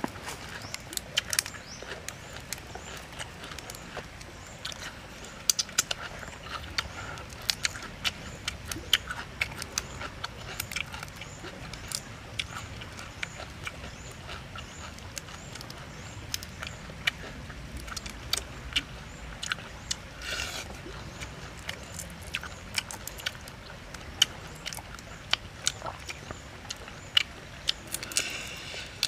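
Close-up eating sounds: lip smacking, chewing and sucking, with the crackle of cooked shrimp shells being peeled by hand, heard as irregular sharp clicks and smacks several times a second.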